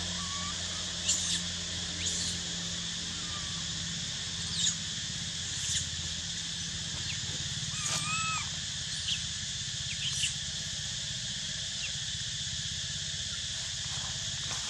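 Forest ambience: a steady high drone, typical of tropical forest insects, with short high chirps and squeaks every second or so and a pair of arching squeals about eight seconds in.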